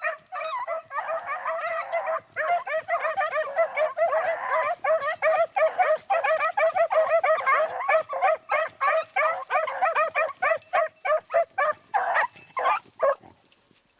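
A pack of hunting beagles yipping and baying, many voices overlapping in a dense, rapid chorus that breaks into separate yelps near the end and stops shortly before it.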